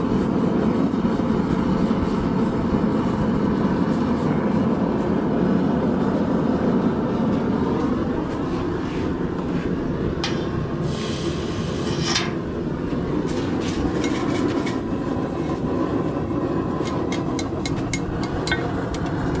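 Forge running with a steady roar. Partway through, a short hiss as the hot curlicue is cooled in water, then light hammer strikes on steel that come faster near the end, about three a second, as the hook is bent over the anvil.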